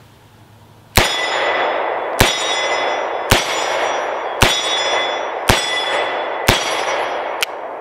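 Six shots from a Rock Island Armory AL3.1 snub-nose .357 Magnum revolver, about one a second, the first about a second in. Steel plate targets ring on after each shot, a sustained metallic clang with several steady tones.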